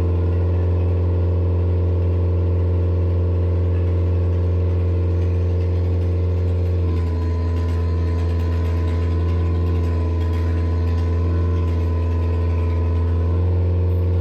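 Engine of heavy log-loading equipment running steadily close by. Its note shifts about seven seconds in and again near the end, as the load on it changes.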